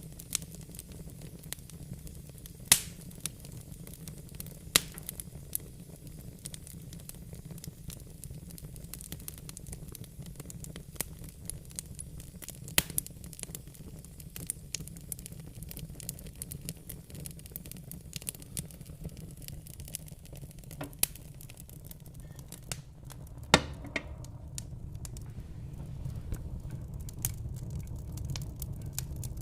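Wood fire burning in a fireplace: a steady low rumble of flames with irregular crackles and a few sharper, louder pops.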